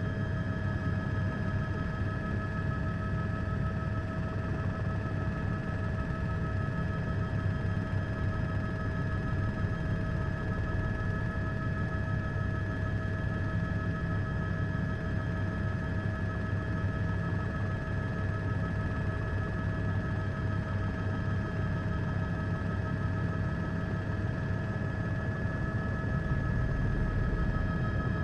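Steady helicopter cabin noise: a constant low rotor rumble with a steady high whine, unchanging throughout, with no voices.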